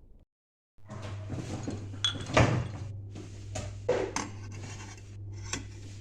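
Household handling sounds: a series of short knocks and clicks over a steady low hum, the loudest knock about two and a half seconds in.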